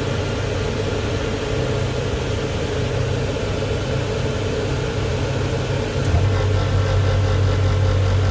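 Marine air-conditioning unit running with a steady hum; about six seconds in there is a click and the compressor starts, adding a louder, steady low hum.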